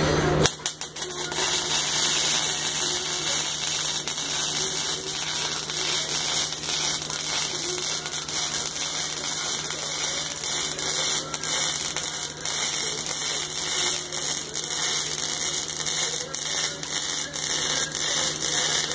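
MIG welding arc crackling steadily, starting about half a second in, with a steady low hum underneath.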